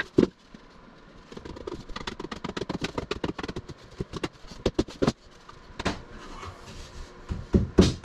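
Knocks and taps on wood: one sharp knock, then a quick run of light taps, then heavier, evenly spaced thumps near the end.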